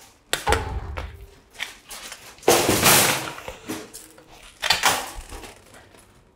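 Wire shopping cart rattling as it rolls over a concrete floor, with sharp clacks of ski poles striking the floor to push it along. Several loud clattering bangs, the loudest about two and a half seconds in and another near five seconds.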